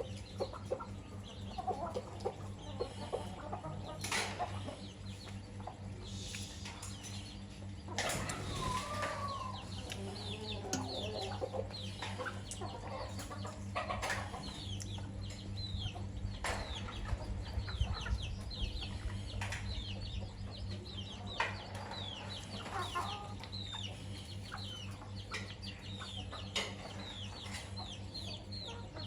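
A flock of chickens feeding: hens clucking, and chicks peeping in many short, falling cheeps, with a few sharp clicks scattered through.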